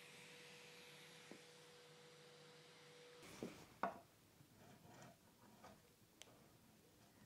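Faint steady tone at first, then a few short scrapes of a wood chisel against the edge of a wooden chair frame, the sharpest about halfway through.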